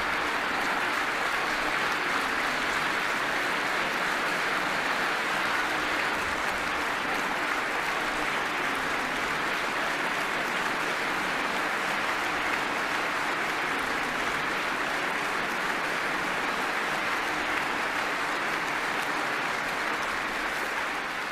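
A hall audience applauding steadily for about twenty seconds, with no break.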